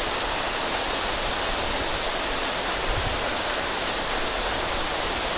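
Waterfall pouring close by, a steady, even rush of falling water.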